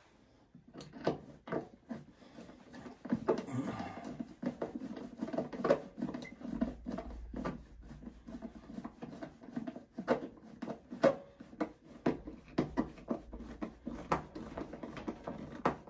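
Irregular clicks, knocks and light rattles of a steel electrical service-panel cover being fitted and its screws driven in to close the panel. The clicks start about a second in.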